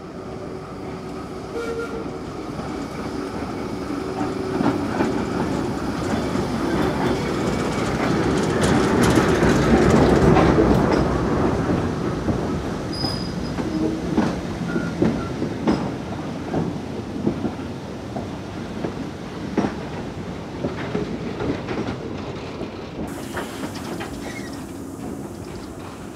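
A diesel train passing on heritage track, building to its loudest about ten seconds in and then slowly fading, its wheels clicking over the rail joints.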